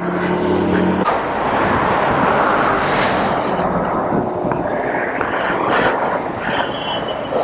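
A motorcycle engine idling steadily, cut off abruptly about a second in. Then a steady rush of road and wind noise from highway traffic, swelling around the middle as a vehicle goes by.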